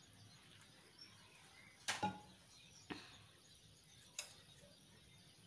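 A spoon clinking lightly against a small steel bowl, three short clicks about a second apart, while kani flour is stirred into water; otherwise near quiet.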